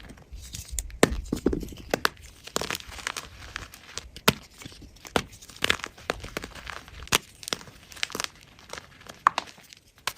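A block of gym chalk being crushed, giving irregular crunchy cracks and crumbling crackles, with the sharpest snaps about a second apart.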